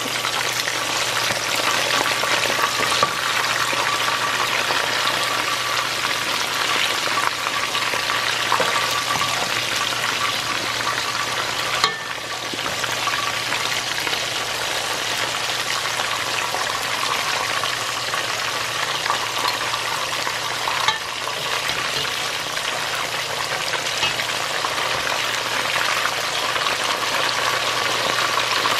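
Spice-coated salmon pieces sizzling steadily in hot oil in a nonstick pan, a dense, even crackle of frying. Twice a brief click cuts through the sizzle.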